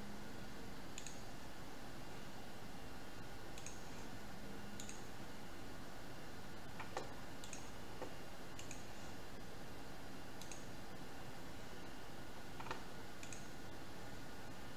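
Computer mouse clicks at irregular intervals of a second or two, mostly faint, two of them sharper, over a steady hiss.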